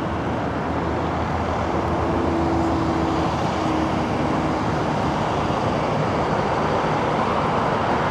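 Jet noise from a Boeing 777-300ER with GE90 engines landing, a steady broad rumble that swells slightly about a second in.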